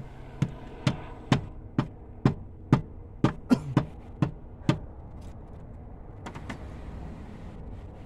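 Rubber mallet beating on a BMW X5 alternator to drive it into its mount: about eleven sharp knocks at roughly two a second, then two fainter taps about six seconds in.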